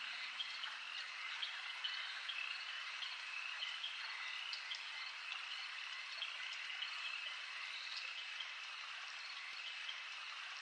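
A night chorus of frogs and crickets: a steady bed of many short, high chirps overlapping, with no music over it.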